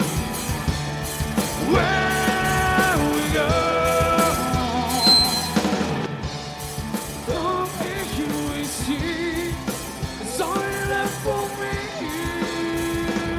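Live rock band playing: drum kit and electric guitars, with a lead line of long held notes that waver in pitch.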